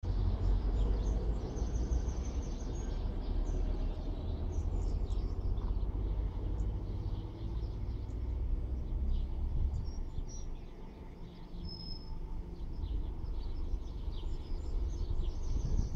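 Small birds chirping now and then over a steady low outdoor rumble that dips for a moment about ten seconds in.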